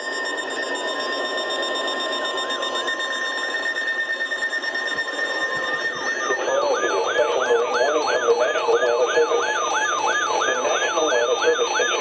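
Weather radio receiver's electronic alert alarm, signalling a Special Marine Warning. For the first half there are faint steady tones over radio hiss. About six seconds in, the alarm starts: a rapid repeating rise-and-fall warble, two to three cycles a second.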